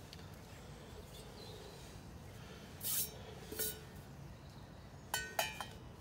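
Frying pan set down on the metal pot supports of a gas canister camping stove: two sharp, ringing metal clinks a little after five seconds in. Two short swishing noises come a couple of seconds earlier as the pan is handled.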